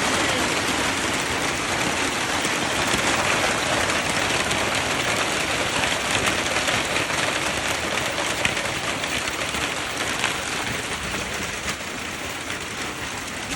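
Heavy hail mixed with rain pounding down as a dense, steady roar, with individual hailstones striking as sharp clicks and a couple of louder cracks in the second half.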